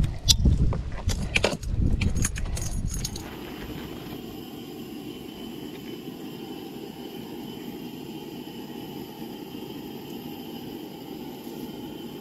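A few seconds of irregular knocks and clatter with a low wind rumble on the microphone, from handling on a small fishing boat. Then it cuts to a steady, even hiss.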